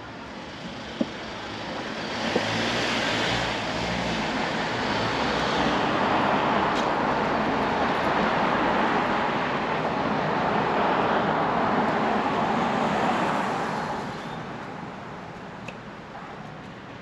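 Wind and road noise of a Honda Gold Wing motorcycle on the move: a steady rush that swells a couple of seconds in, holds for about ten seconds, then dies down.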